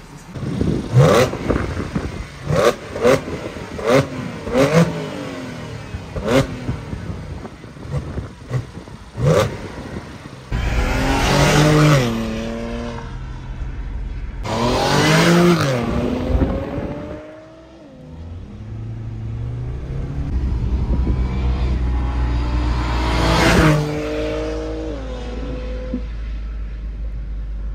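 Audi S5 B8's supercharged 3.0 V6, running through the stock facelift exhaust with a Milltek X-pipe, gives a string of quick throttle blips. Then it accelerates hard through the gears, the revs climbing and dropping back at each upshift, heard from inside the car.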